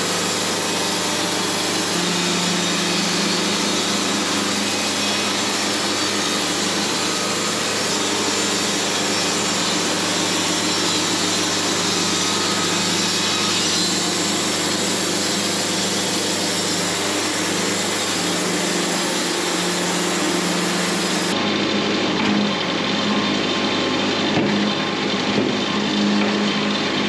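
A motor-driven machine running steadily with a constant hum. About 21 seconds in the sound changes abruptly to a duller running sound with a few irregular knocks.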